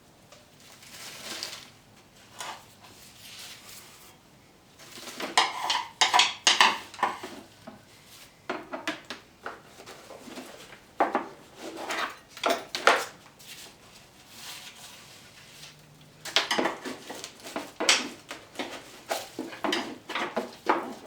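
Irregular scraping and clattering against a lawn mower's housing and deck as old grass and leaves are cleared off it. The sound comes in bunches of quick strokes with short pauses between them.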